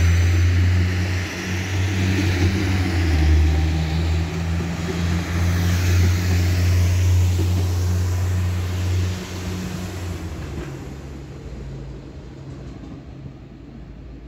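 Two coupled DB Regio Talent diesel railcars pulling away. Their engines drone low and loud, with a high whine that shifts in pitch midway, then the sound fades steadily as the train moves off into the distance.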